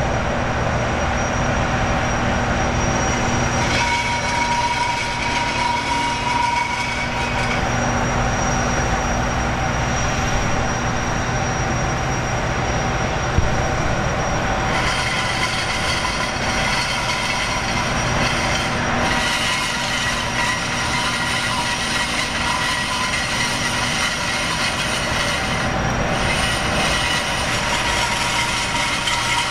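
High-speed jetfoil gas turbines running, a steady high whine over a loud rush of noise. The whine's pitches shift several times.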